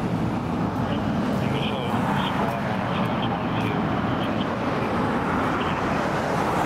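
Fire engine's diesel engine running steadily as it drives off slowly, with road and traffic noise; no siren is sounding.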